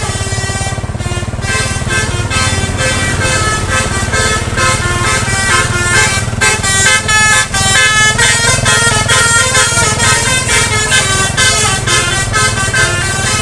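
Bus basuri horn, a multi-tone musical horn, playing a fast tune of short stepped notes, with a steady low rumble underneath.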